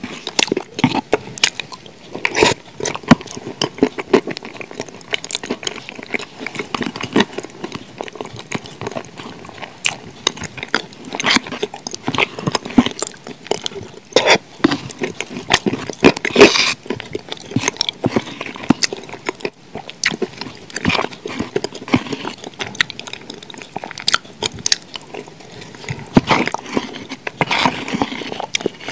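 Close-miked wet mouth sounds of eating thick cream: sticky smacks and squelches in an irregular stream, with a few louder smacks. The metal spoon scrapes and clicks against the plastic tub now and then.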